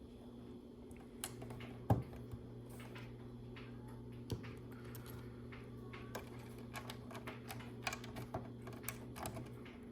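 Small LEGO plastic pieces clicking and tapping as they are handled and pressed onto the board: scattered light clicks, a sharper one about two seconds in, and a quicker run of clicks in the last few seconds.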